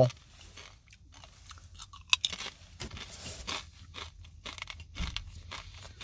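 A person chewing thick, crunchy cassava chips: irregular crisp crunches starting about a second in.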